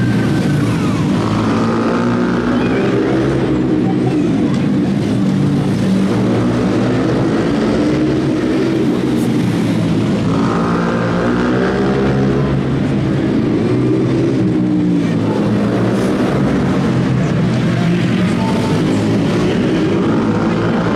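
Small four-stroke engine of a mini shifter ATV racing flat out, its pitch climbing and falling every few seconds as it accelerates down the straights and backs off for the turns.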